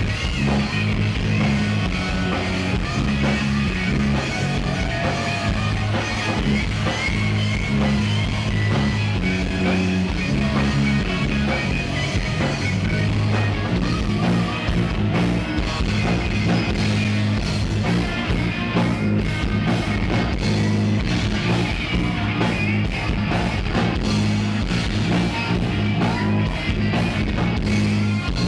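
Live rock band playing loud: electric guitars over bass guitar and drums, with the drumming getting busier about halfway through.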